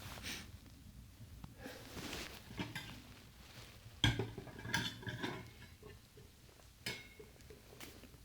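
Light clicks, knocks and clatter of small hard objects being handled, with the sharpest knock about four seconds in.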